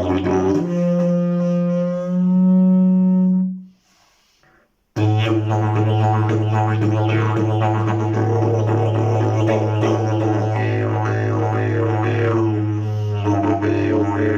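Slide didgeridoo of prickly pear fibre and fibreglass being played: a low drone jumps up to a higher held note for about three seconds, then breaks off for about a second with a short breath. The low drone comes back with rhythmically shifting overtones.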